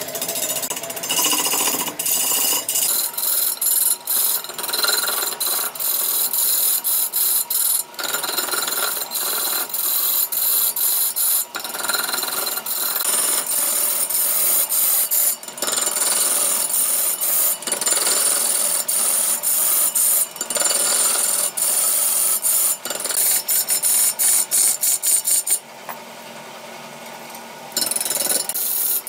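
Turning tool cutting into a large ebony root blank spinning on a big wood lathe: a loud, rough scraping broken by many sharp ticks. It breaks off for about two seconds near the end, then resumes.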